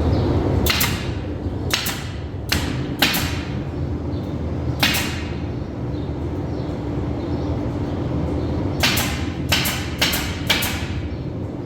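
Hammer blows, each a sharp strike that rings briefly: about five spread over the first five seconds, then four in quick succession near the end, over a steady low rumble.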